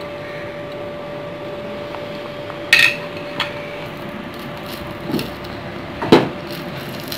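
A small stainless steel pan clanking and knocking as it is set down and moved on a gas stove's grate. There are four knocks, a sharp ringing one about three seconds in and the loudest just after six seconds, over a steady faint hum.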